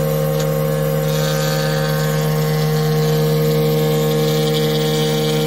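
Overhead router's motor running with a steady hum, its bit cutting into a wooden board fed along the fence; a hiss of cutting joins about a second in.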